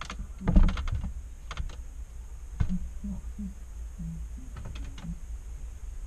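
Scattered clicks and knocks inside a washing machine drum, heard muffled through the camera's housing, over a steady low hum. The loudest knock comes about half a second in.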